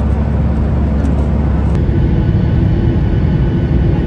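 Steady engine and airflow noise of a passenger jet heard inside the cabin. The noise shifts abruptly a little under halfway through.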